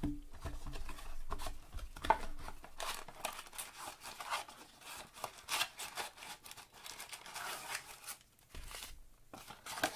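Cardboard Topps Gypsy Queen blaster box being torn open and its wrapped packs handled: irregular tearing and crinkling, with a sharper rip about two seconds in.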